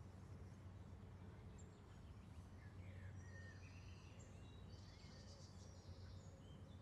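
Near silence: faint outdoor ambience with a low steady hum and a few faint bird chirps.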